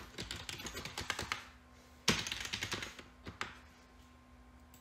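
Computer keyboard typing in quick bursts of keystrokes, the loudest flurry about two seconds in, with the keystrokes stopping after about three and a half seconds.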